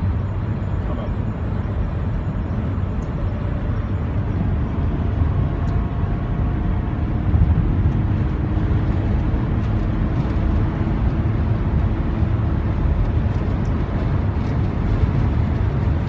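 Cabin noise inside a VW T6 Transporter bus accelerating at about 160–175 km/h: steady wind and road noise over the drone of its 2.0 TDI four-cylinder diesel turning about 3,000 rpm.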